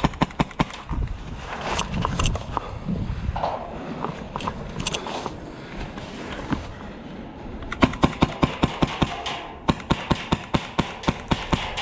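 Airsoft rifle fire in rapid bursts of sharp shots, several a second: a short burst at the start, then two longer bursts in the second half. Quieter shuffling and movement noise comes between the bursts.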